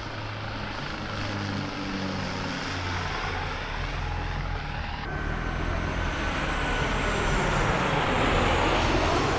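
Twin-turboprop military transport plane flying low on landing approach, its propellers giving a steady hum. About five seconds in, the sound cuts to a Jet2 jet airliner passing low overhead on approach: its engines whine with a falling pitch and grow loudest near the end.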